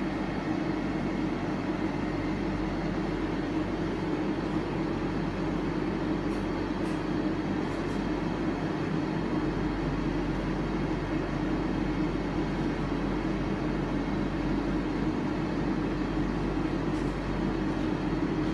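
Thread-rolling machine running: two grooved cylindrical dies rolling a thread onto a steel bar under coolant, a steady mechanical drone.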